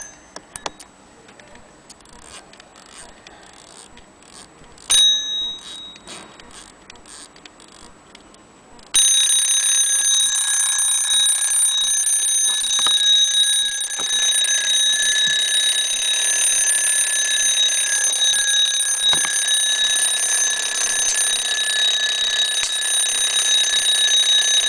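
Vintage Swiza mechanical alarm clock's alarm going off: a brief ring about five seconds in, then from about nine seconds a loud, continuous high ringing. Before the ringing, a few light clicks.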